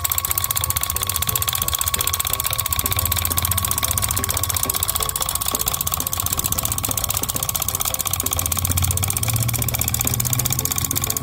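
Miniature walking tractor's small motor running steadily as it drives its steel cage wheels through muddy paddy water, with a fast, even pulse and a thin steady whine.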